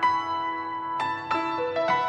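Background music: keyboard notes struck one after another, each left ringing, with a fresh note at the start and a quicker run of notes in the second half.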